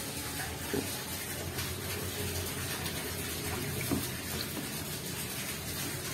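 Steady rushing of running water, with a couple of faint soft knocks.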